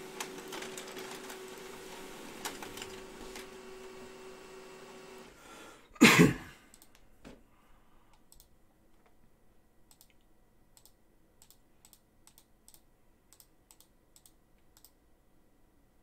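Computer keyboard being typed on, in faint, sparse key clicks from about eight seconds in. Before that a steady hum runs and cuts off about five seconds in, and a loud thump comes about six seconds in.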